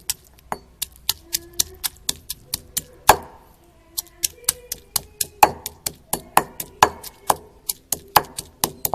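Raw turmeric being pounded to crush it for a yellow dye: quick sharp knocks, about three or four a second, some with a short hollow ring, with a brief pause about four seconds in.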